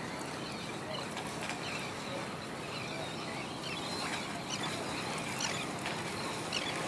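Steady rush of water and wind from a boat under way, with several short, high bird calls scattered through it.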